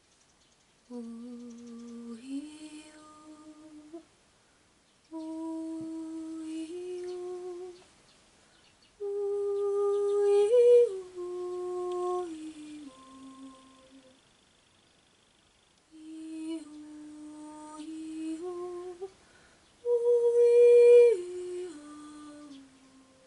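A voice humming a slow, wordless melody in short phrases of held notes that step up and down, with brief pauses between the phrases.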